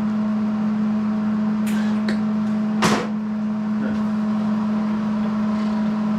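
A steady machine hum, with a few light metal clicks and one louder knock about three seconds in.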